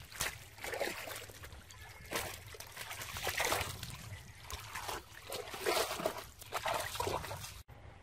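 Muddy water sloshing and splashing in irregular bursts as bare feet wade through a shallow pool. The sound cuts off sharply near the end.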